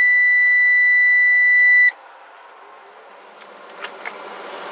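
Heavy truck's dashboard warning buzzer sounding as the ignition is switched on for a restart: one steady high beep that cuts off suddenly about two seconds in. A low, even engine sound then slowly rises as the engine is started.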